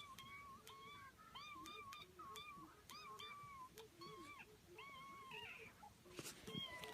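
Cat-like meowing calls: a quick, unbroken series of short chirping meows that rise and fall in pitch, overlapped by a second, lower series of calls. A louder noisy scuffle sounds near the end.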